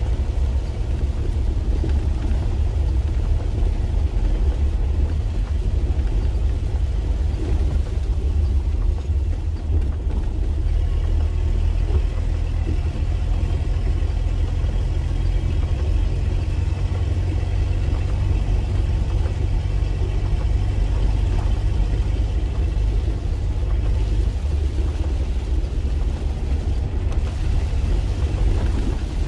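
Mitsubishi L200 pickup driving steadily on a wet dirt road, heard from inside the cab: a constant low engine drone with tyre and road noise.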